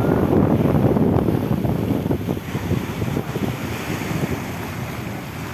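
Wind buffeting the microphone over sea surf breaking and washing on the beach. The wind rumble is heaviest in the first couple of seconds, then eases a little.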